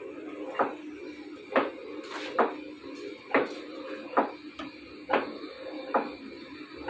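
Large metal lathe boring a hole through a stack of steel plates bolted to its faceplate: a steady machine hum with a sharp metallic knock coming back a little less than once a second.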